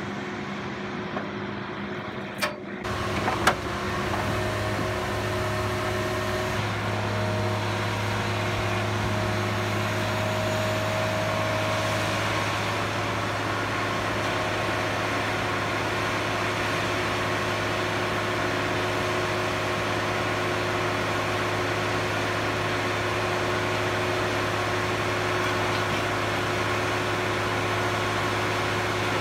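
Heavy diesel machinery running steadily, a constant drone, as a hydraulic log loader lifts and swings logs onto a log truck. A couple of sharp metallic clanks come in the first few seconds, before the drone steadies.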